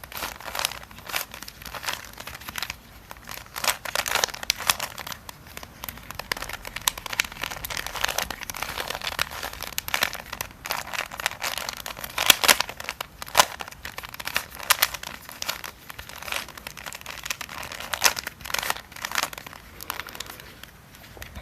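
Plastic Fisher cube (a shape-shifted 3x3 Rubik's cube) being twisted and worked by hand, its pieces clicking and rattling in quick irregular runs.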